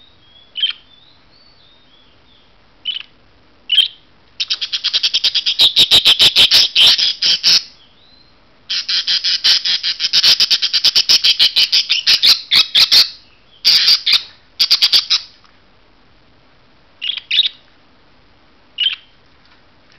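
Budgerigars squawking in their cage. A few short calls and soft warbles come first, then two long runs of rapid, loud, harsh repeated squawks and a shorter burst, and a few single calls near the end.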